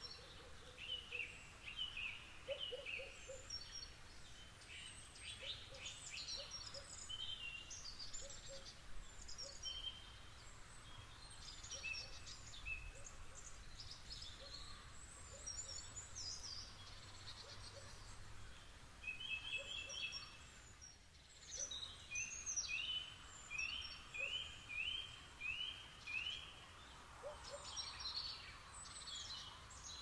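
Woodland songbirds calling and singing over a faint steady background hiss, several birds overlapping with short high calls and trills. About two-thirds of the way through, one bird gives a run of about six quick, evenly spaced repeated notes.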